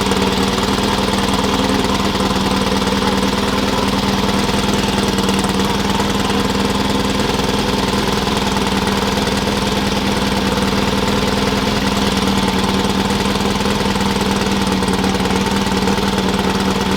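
An engine running steadily at one constant speed, with a strong unchanging hum and no revving.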